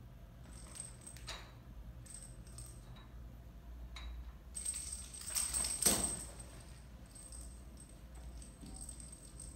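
A small bell jingling on and off as kittens play with a toy, loudest about five to six seconds in, with a soft knock at the peak.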